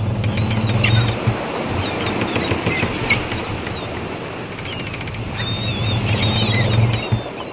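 Sound effects for an animated channel intro: a steady rushing noise under a low hum that swells about a second in and again near the end, with bird-like chirps and gliding whistles scattered over it.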